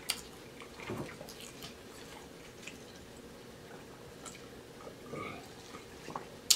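Soft chewing and small wet mouth clicks, then swallowing sips of iced water from a glass about four seconds in. A sharp knock comes right at the end.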